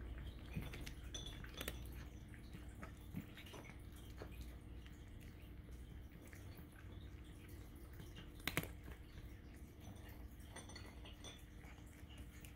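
A cat crunching dry kibble: irregular small crunches and clicks as it picks up and chews the pieces, with one sharper click a little past the middle.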